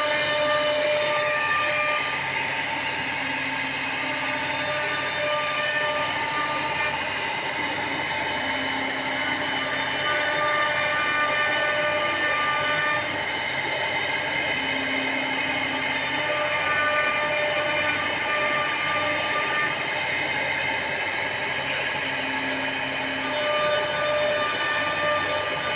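CNC router spindle running and cutting wood, a steady whine over cutting noise, with tones that shift and come and go every few seconds as the machine moves.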